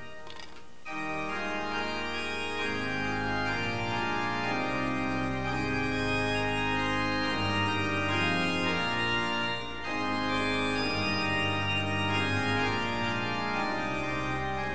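Organ playing slow, sustained chords, with brief pauses between phrases about a second in and near the ten-second mark, and a bass line coming in after about three seconds.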